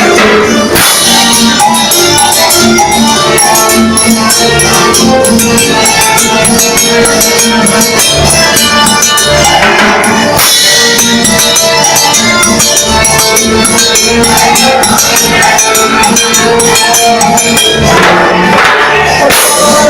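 Electronic keyboard playing upbeat Latin dance music, with a steady beat, a bass line and busy shaker-like percussion.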